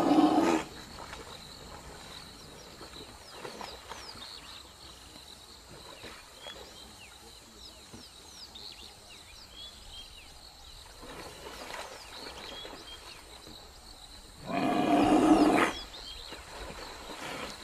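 A large animal's loud, harsh call, heard twice, each about a second long: once at the start and again about 14.5 seconds in. Faint high chirps can be heard between the calls.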